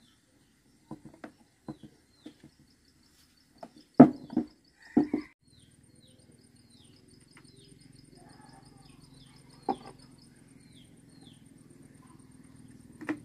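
A screwdriver clicking and knocking on a chainsaw's plastic and metal housing, in scattered taps with the loudest knocks about four seconds in. From about halfway, birds chirp and trill over a low steady hum, with a few more light taps.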